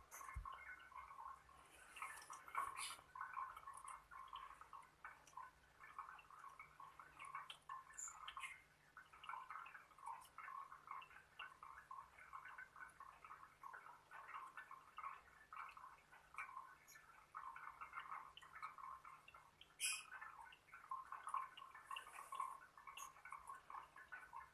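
Lovebirds chirping and chattering faintly in a dense, unbroken run of short squeaky calls, with a few brief clicks.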